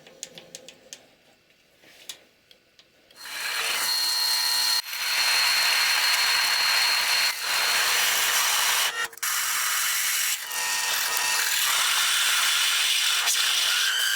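A few light clicks and knocks, then about three seconds in a handheld power tool starts and runs with a high whine over a hiss, briefly dropping out a few times.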